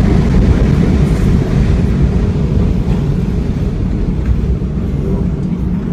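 Deep, loud rumble continuing after a massive chemical-warehouse explosion, slowly dying away.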